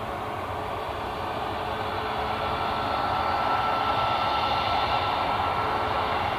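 Jet airliner engines running at low power, a steady rumble and hiss with a thin whine that swells about two seconds in and eases near the end, typical of a Boeing 737-8 MAX taxiing onto the runway to line up.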